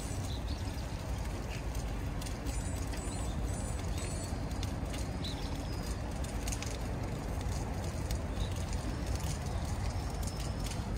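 Sacred bonfire of hitaki-gushi prayer sticks burning, with scattered crackles over a steady low rumble. A few faint, high bird chirps come through now and then.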